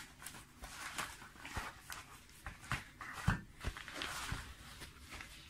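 Crinkling and rustling of a kraft-paper padded mailer as a booklet is slid out of it, with scattered light taps and one louder knock about three seconds in.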